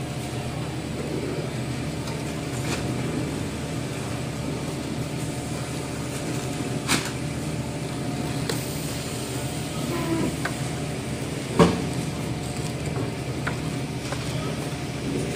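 Toilet paper production and packing machinery running with a steady hum, with a few short clicks and knocks from the packing work, the loudest knock about three-quarters of the way through.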